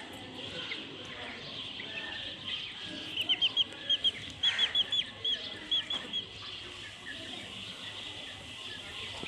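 A bird chirping a rapid series of short, high calls for about three seconds, starting around three seconds in, over a steady background hiss.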